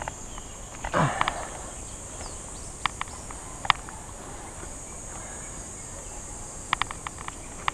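Steady high-pitched insect drone, with a few sharp clicks and snaps scattered through it and a short rustle about a second in.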